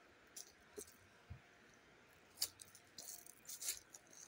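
Footsteps crunching on dry leaf litter and twigs: a few faint, irregular crackles, the loudest about two and a half seconds in, with a quick run of them in the last second.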